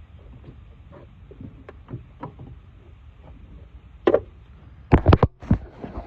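Coolant hose being twisted and worked off the thermostat housing in a car's engine bay: scattered light clicks and rubbing, then a loud knock about four seconds in and a quick run of loud knocks a second later.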